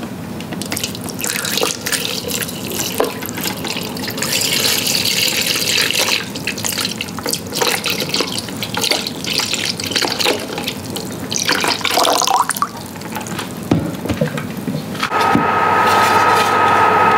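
Tap water running into a kitchen sink, splashing, with small knocks as things are washed in it. About fifteen seconds in it gives way to a louder, steady hum with a high whine.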